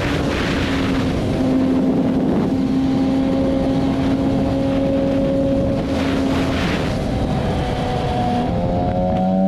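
BMW S1000RR inline-four engine running at a steady cruise, under wind rush on the microphone that swells in gusts. Near the end the engine note steps down and then climbs as the bike pulls harder.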